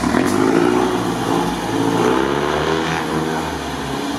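Lifted, rebuilt GAZ-63 truck's engine running under throttle as the truck pulls away, revs rising and falling.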